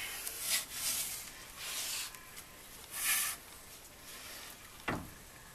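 Disc brake rotor scraping against the brake backing plate as it is turned by hand, in four short scrapes, then a single knock near the end. The scrape is the sign that the rotor does not clear the backing plate.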